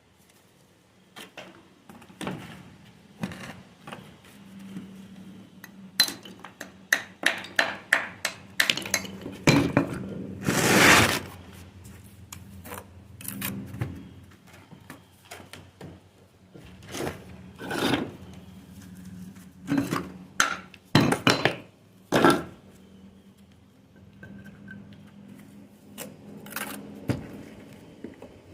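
A small metal hand tool clinking and scraping against stone and wet mortar while packing mortar into a gap between cladding stones. The clicks and scrapes come in irregular clusters, with one longer, louder scrape about eleven seconds in.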